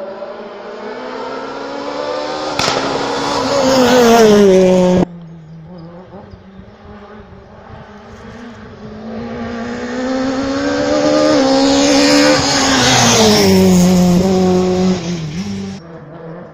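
Two rally cars at racing speed, one after the other, each approaching with its engine note climbing and dropping in pitch as it passes. The first breaks off suddenly about five seconds in, and the second passes near the end.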